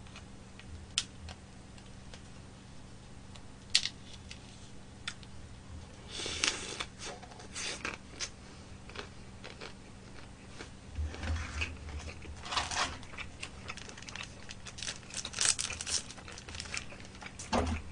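Close-up eating sounds: a few light clicks, then chewing mixed with crinkling and tearing of a small paper packet, coming in several short bursts through the second half.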